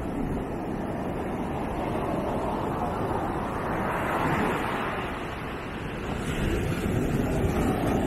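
Ocean surf breaking on a sandy beach: a continuous wash of waves that swells about halfway through and again near the end, with wind rumbling on the microphone.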